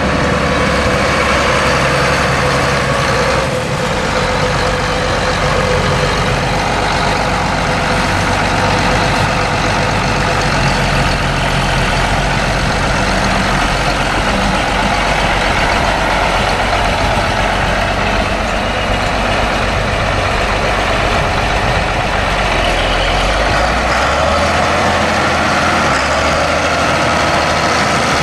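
Allis Chalmers 7060 tractor's 7.0L six-cylinder turbo diesel engine running steadily, its low hum shifting about three and a half seconds in and again near the end.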